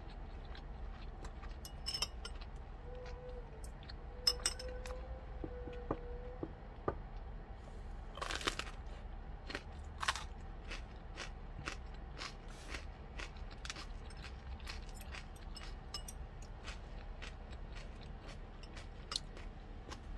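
A person chewing and crunching a bite of raw cucumber chili pepper, a long run of small crisp crunches with a louder crunch about eight seconds in. A couple of sharp clinks of metal utensils come about two and four seconds in.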